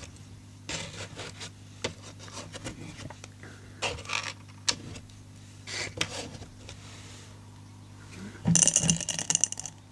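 Fingers scraping and picking small glass beads off the bottom of a cardboard box, with soft scuffs and light taps now and then. About eight and a half seconds in, a handful of beads rattles and clinks for about a second, the loudest sound, as the beads are dropped into a glass jar.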